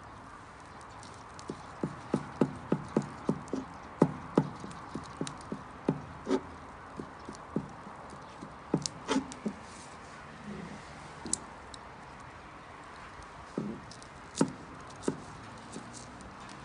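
A run of sharp knocks, about four a second, then slower, scattered single knocks, with a few faint high clicks.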